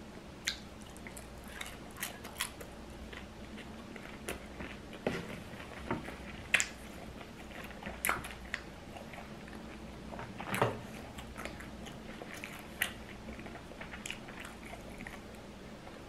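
Close-up chewing and crunching of fried tortilla chips from a loaded nacho plate, with scattered crisp crunches at irregular intervals and a couple of louder ones about six and ten seconds in.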